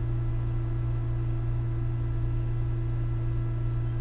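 A steady low electrical hum with fainter higher overtone lines above it, unchanging throughout.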